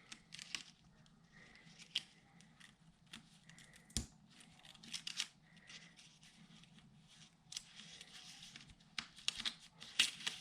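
Small die-cut paper pieces being pulled out of a sheet of paper: faint tearing and rustling with scattered light clicks, busiest near the end.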